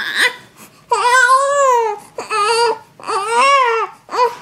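A three-week-old baby crying: several loud wails, each about a second long and rising then falling in pitch, with short pauses between them.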